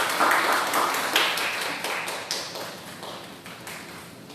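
A small audience clapping, the claps loudest at first and thinning out and fading over about three seconds.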